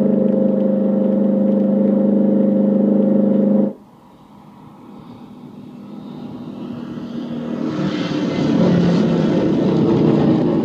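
A loud steady droning tone cuts off abruptly a few seconds in. Then the V8 of a Dodge Challenger grows steadily louder as the car approaches at speed, running hardest near the end as it closes in and rushes past.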